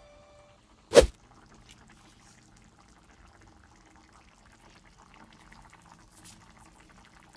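A single sharp knock about a second in, then faint liquid sounds with small ticks, as of food cooking in a pan.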